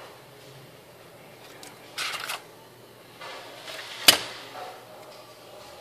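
Tools and a metal circuit-board holder being handled on a workbench: a short scrape about two seconds in, then a sharp knock about four seconds in as the holder is picked up and moved.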